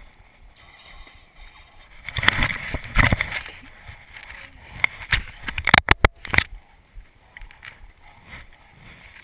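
Boxed plastic toy lightsaber being handled and knocked about: rustling and scraping of the box, then a quick cluster of sharp knocks about six seconds in.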